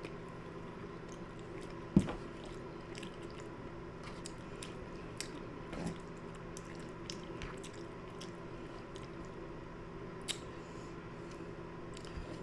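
Close-up chewing and wet mouth sounds of someone eating fettuccine Alfredo, with small clicks of a metal fork against a bowl. A single sharp knock about two seconds in, and a smaller one near the end.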